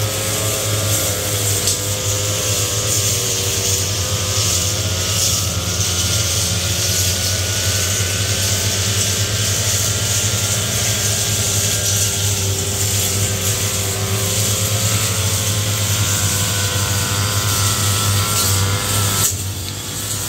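Backpack brush cutters running steadily while cutting grass and weeds, with several engine notes wavering over one another and a bright hiss from the cutting heads. The hiss drops away about a second before the end.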